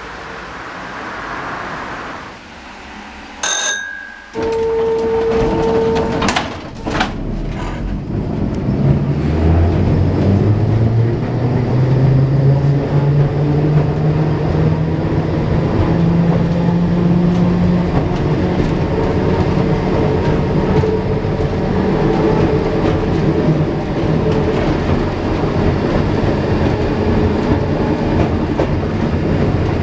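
Inside the cabin of a 1950s Gotha two-axle tram: a steady beep for about two seconds and a few clunks, then the tram sets off. The traction motors whine, rising in pitch as it accelerates, over the running noise of the wheels on the rails.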